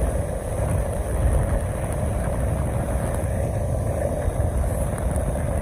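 Steady engine and road rumble of a moving vehicle, an even drone with no breaks.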